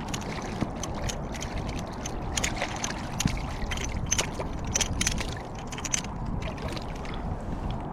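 Water lapping and splashing against a kayak hull, with many small irregular clicks and ticks over a steady low rumble.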